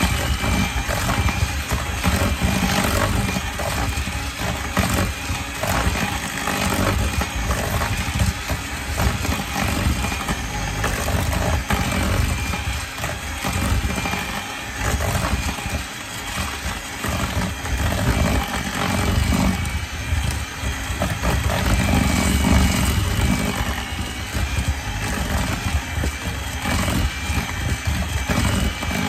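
Electric hand mixer running steadily, its beaters churning thick peanut butter cookie dough as two eggs are beaten into the creamed butter, sugar and peanut butter. The sound swells and dips as the beaters work through the dough.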